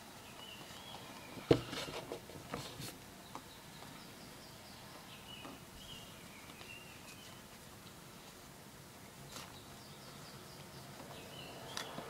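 Faint handling knocks and clicks as hands work a doll's hair into a bun, the loudest a sharp knock about a second and a half in. A bird sings faintly in short warbling phrases that come back three times.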